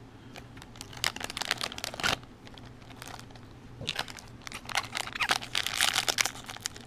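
Foil wrapper of a 2020 Topps Series 2 jumbo baseball card pack crinkling as it is handled and torn open: scattered crackles at first, then a dense stretch of crinkling from about halfway through.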